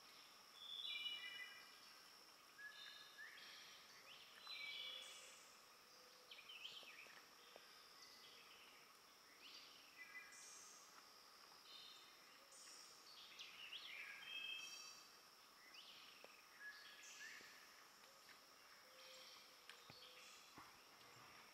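Faint woodland birdsong: short whistled phrases repeating every second or two, over a steady high-pitched insect drone.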